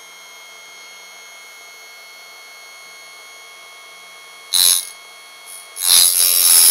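Parkside electric sharpening station running with a steady, high motor whine. A knife blade drawn through its grinding slot gives a short grinding burst about four and a half seconds in, then a loud continuous grind from about six seconds in as the serrated edge is ground off.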